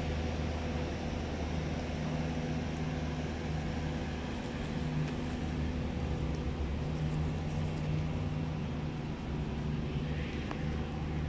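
Steady low engine rumble, a deep hum with no break.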